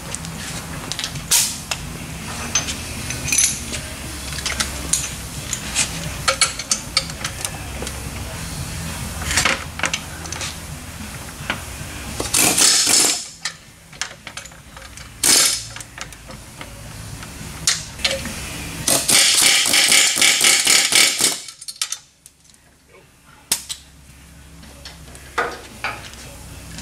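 Pneumatic air hammer rattling against a tubular steel lower control arm in short bursts, driving out the nuts welded into the arm; the longest burst, about two and a half seconds of rapid hammering, comes near the end. Between bursts there are metal clinks and knocks, with a low steady hum in the first half.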